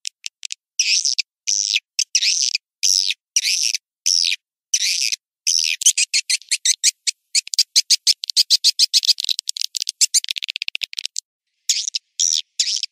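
Recorded edible-nest swiftlet lure call (suara panggil walet), used to draw swiftlets to a swiftlet house: high twittering chirps at first spaced about half a second apart, then from about halfway a fast clicking chatter and a buzzy trill, a brief break, and the chirps again near the end.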